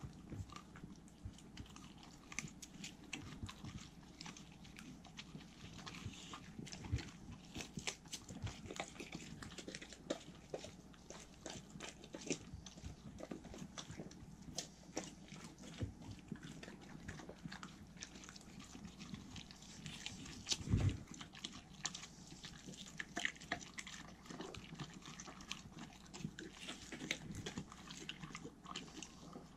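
Two Welsh corgis biting and chewing peeled melon fed by hand: a steady run of short clicks and smacks from their mouths. About two-thirds of the way through there is one louder low thump.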